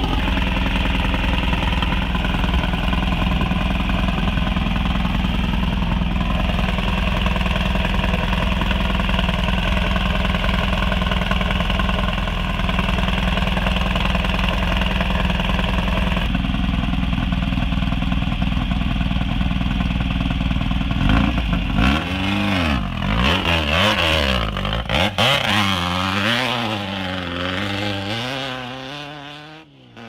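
Off-road race truck's engine idling steadily, then revving up and down repeatedly as the truck pulls away, fading into the distance near the end.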